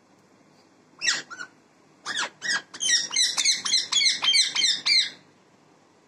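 Rose-ringed parakeet calling: two short high-pitched calls about a second in, then a run of screechy calls that speeds up to about five a second and stops about five seconds in.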